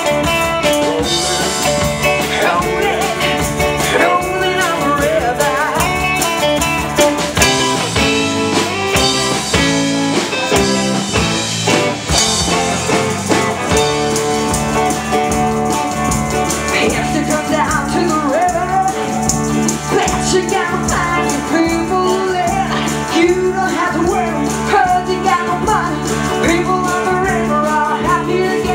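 Live band playing a blues-rock song, with singing and guitar.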